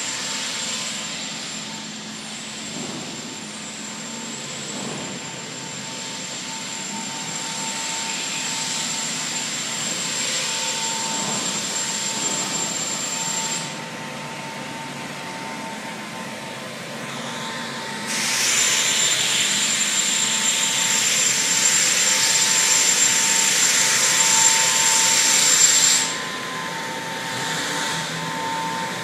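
Steady dry-dock machinery noise: a constant whine over a hissing rush, the hiss growing louder for several seconds past the middle, then dropping back.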